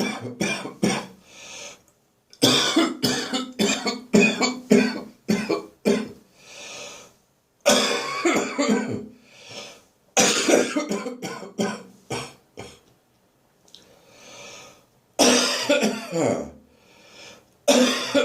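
A person's dry, hacking cough left over from bronchitis: repeated fits of several rapid coughs each, about six fits, with breaths drawn in between them.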